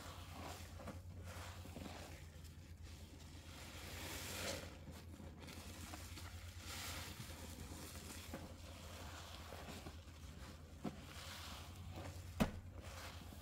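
Sponge soaked with soap and pine cleaner being squeezed and worked: soft wet squelches and swishes that swell and fade, with a low steady hum underneath and a sharp click near the end.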